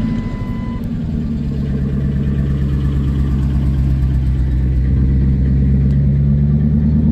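Pickup truck's V8 engine idling steadily just after starting, running smooth on freshly fitted coil packs with no misfire.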